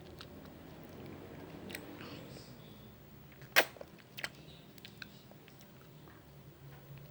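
Close-up mouth sounds of someone eating ice cream: soft chewing and small wet clicks, with one sharp click about three and a half seconds in and a fainter one soon after.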